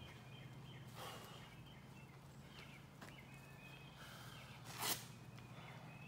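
Quiet outdoor ambience: a faint low hum with short high chirps. A brief breathy burst of noise comes about five seconds in.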